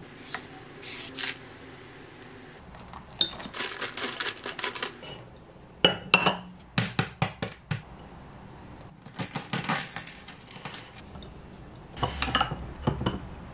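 Small seeds and nibs pattering as they are shaken from a bag into a ceramic bowl. Then come several sharp clinks and knocks of the ceramic bowl being set on a plate and tableware being put down.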